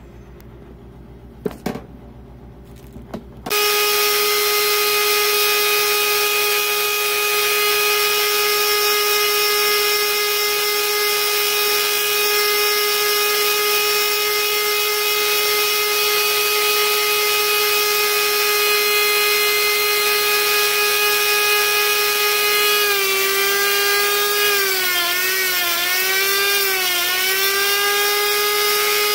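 Die grinder with a carbide burr starting up about three and a half seconds in and running at a steady high whine. Near the end its pitch dips and wavers as the burr bites into the cast-iron combustion chamber, cutting it back around the intake valve.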